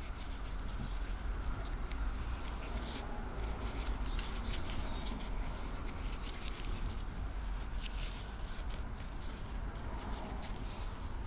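Nylon webbing rustling and scraping against itself and the fingers as it is worked into a water knot: a run of short, irregular rustles and soft scratches over a low steady rumble.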